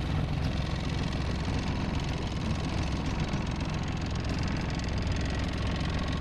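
Tohatsu outboard motor running steadily at easy throttle during its break-in: an even, unchanging drone, heaviest in the low end.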